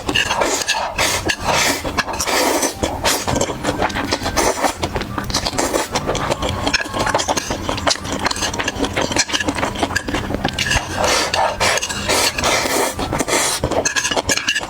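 Close-miked eating sounds: continuous chewing and mouth clicks with wet smacking and crackle.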